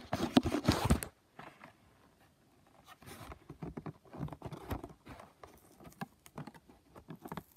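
Rustling and scraping handling noise close to the microphone, loudest in the first second. After a short quiet gap it goes on as scattered light clicks and rustles.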